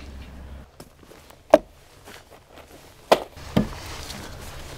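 Timber posts knocking against wood as they are handled and set against the wooden base frame: one sharp knock about one and a half seconds in, then two more close together near three seconds in.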